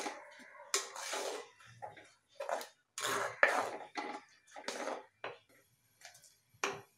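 Wooden spatula stirring a thick coconut-and-curd mixture in an earthenware pot, with a series of irregular scrapes and swishes against the pot.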